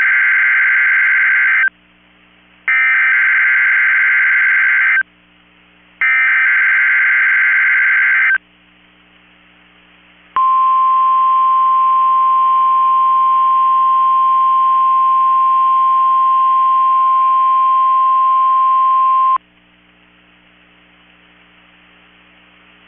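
NOAA Weather Radio alert signal for a Required Weekly Test. Three buzzing SAME data bursts, each about two and a half seconds long with about a second's gap between them, the first already under way. About ten seconds in comes the steady single-pitch 1050 Hz warning alarm tone, held for about nine seconds before it cuts off.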